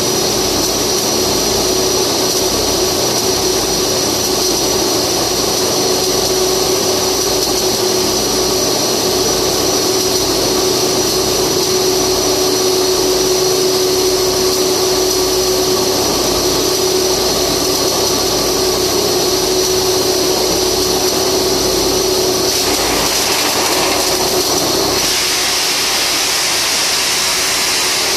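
Flux-cored arc welding: a steady, loud hiss with a constant droning hum beneath it, the hum stopping about 25 seconds in.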